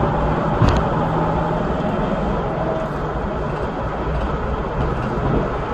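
Steady road and engine noise inside a moving car's cabin, a low rumble with a faint engine hum, and a brief click less than a second in.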